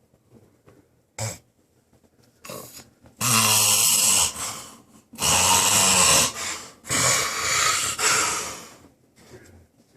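Hard snoring from a sleeping person: a short burst about a second in, then three long, loud snores.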